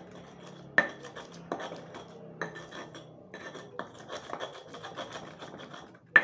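A utensil clinking and tapping against a dish while a spice mix of garlic, salt and turmeric is prepared: many quick light taps, with a few sharper ringing clinks, the loudest one just before the end.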